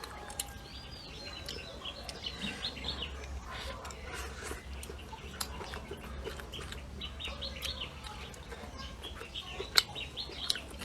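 Small birds chirping repeatedly, short rapid arched calls. Scattered sharp clicks are heard among them, the loudest a single click near the end.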